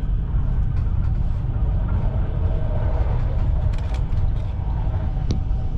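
Passenger train running along the line, heard from inside the carriage at a window: a steady low rumble of wheels on rails. There is a brief sharp click near the end.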